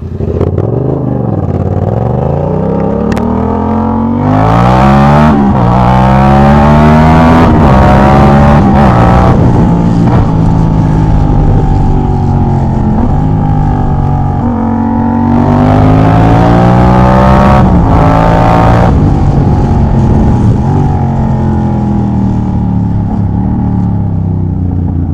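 Yamaha MT-07's 689 cc crossplane parallel-twin engine, breathing through a full Jeskap GP3 sports exhaust with the dB killer removed. It is ridden hard: the engine note rises and then drops sharply at each gear change several times over, before easing off near the end.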